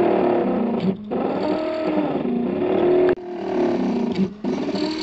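3D printer's stepper motors whining as the print head moves while printing pewter, the tones rising and falling in pitch with each move and stopping briefly a few times.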